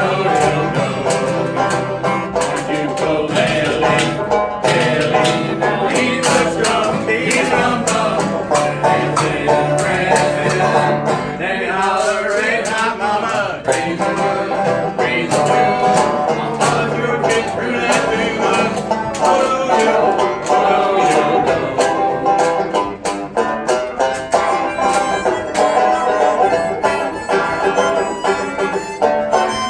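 Amateur jug band playing a lively, bouncy song live, with plucked banjo and guitar carrying the tune and voices joining in at times.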